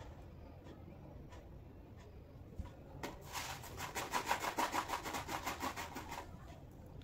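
Rapid back-and-forth rubbing or scraping, about eight strokes a second, starting about three seconds in and lasting about three seconds.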